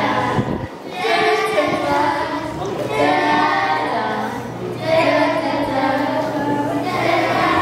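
A group of children singing together in phrases of held notes.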